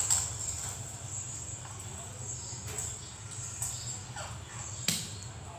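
A steady high-pitched whine over a low hum, with a few faint clicks.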